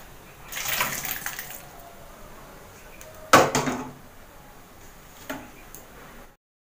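Boiled dal being poured from a metal pot into a steel bowl, a short wet pouring and sloshing. About three seconds in comes a loud metal clank, then a lighter knock, and the sound cuts off abruptly near the end.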